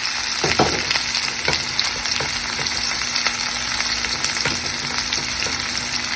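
Food sizzling as it fries in hot oil in a pan, a steady hiss with scattered short clicks and scrapes of stirring.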